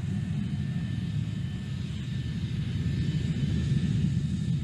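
Jet engines of a Lockheed YF-12A Blackbird running as it taxis, a steady low rumble with hiss and a faint high whine.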